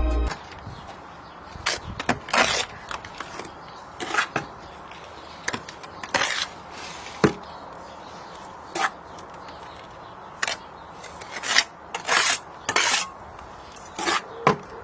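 Bricklaying hand-tool work: irregular short scrapes and sharp taps of a steel trowel against brick and mortar, about a dozen strokes spread unevenly.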